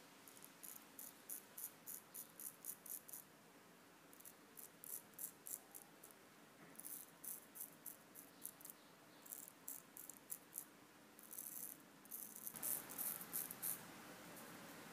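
Antique straight razor scraping through lathered beard stubble in short strokes: a fast series of dry scratches, about four a second, in runs with brief pauses.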